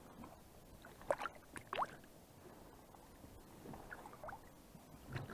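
Faint water sounds at the side of a boat as a European perch is released: a couple of brief plops with a rising pitch about a second and about two seconds in, then softer splashes.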